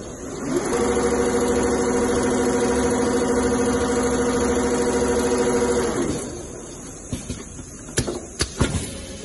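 Richpeace two-head CNC leather sewing machine stitching: its motor whine rises to speed, runs steady for about five seconds, then winds down. A few sharp clicks follow near the end.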